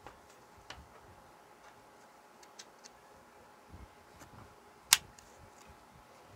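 Scattered light clicks from handling a plastic luggage-strap combination lock, with one sharp, much louder click about five seconds in.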